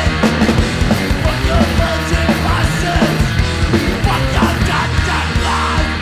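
Hardcore punk recording with distorted electric guitars, bass and busy drums, with shouted vocals at times.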